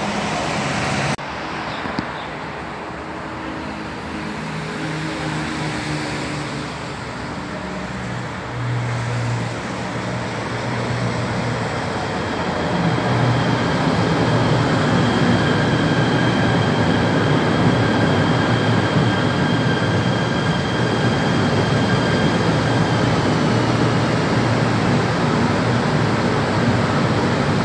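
KTM Komuter electric train running into the platform: a steady rumble of wheels on rails that grows louder about twelve seconds in. A faint high whine holds, then drops in pitch as the train slows.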